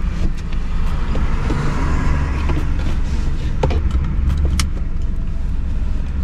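Inside a parked car, with the engine idling as a low steady rumble. A seatbelt is drawn across and latched into its buckle, with sharp clicks a little past the middle.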